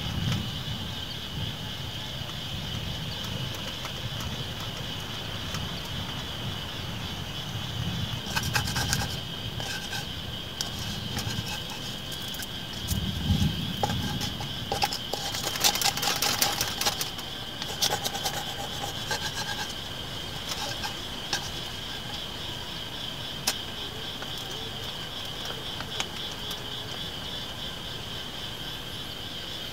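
Wooden spatula scraping and stirring food in a small metal frying pan, in bursts about a third of the way in and again around the middle, with scattered light clicks after. A steady high insect drone runs underneath.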